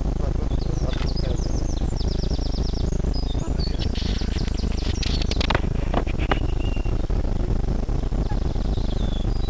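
Small songbirds singing and chirping, with a quick trill of repeated high notes about two seconds in and a few sharp ticks in the middle, over a steady low rumble.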